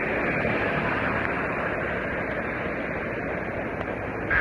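Heavy rain falling on a car, a steady, dense hiss with road noise underneath.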